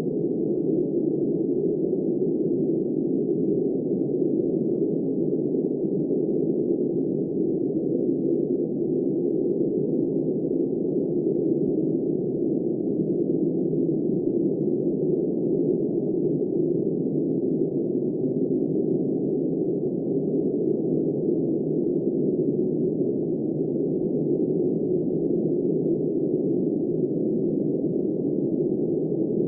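Steady, muffled wind-like rushing noise with no high end, even in level with no gusts.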